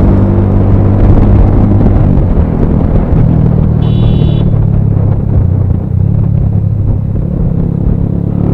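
Bajaj Pulsar 220F single-cylinder engine running through a Race Concepts full-system exhaust at riding speed, buried in heavy wind rumble on an action camera's built-in microphone. The engine eases off a little past the middle and picks up again near the end. A short high beep sounds about four seconds in.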